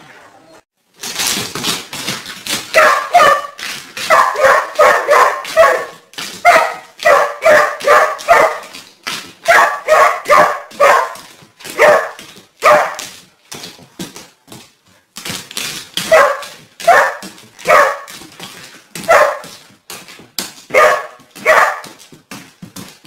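A dog barking in quick runs of short, sharp barks, several a second, with brief pauses between the runs.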